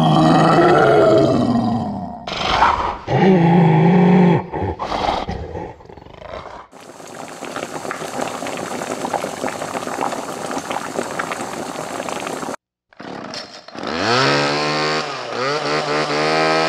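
A run of horror sound effects. It opens with loud creature roars and growls for the first four seconds or so. A steady, dense noise follows for about six seconds and cuts off suddenly, and a wavering, pitched creature cry comes in near the end.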